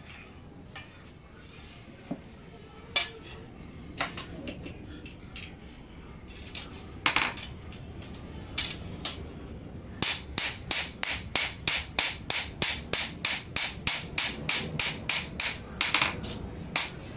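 Blacksmith's hand hammer striking a blade of leaf-spring steel on an anvil: a few separate blows at first, then, about ten seconds in, a steady run of about three blows a second.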